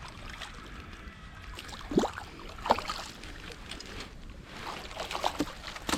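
Water splashing against a small boat, with a few sharp, irregular splashes about two seconds in and again near the end.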